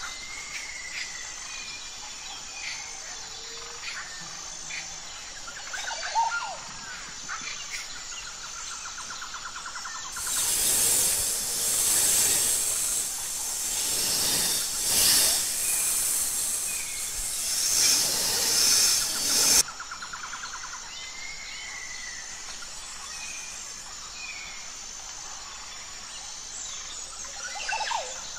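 Nature-sound ambience: scattered bird chirps and calls over a steady pulsing insect trill. About ten seconds in, a loud rushing hiss cuts in, swelling and ebbing for about ten seconds, then stops abruptly and the birds and insects carry on.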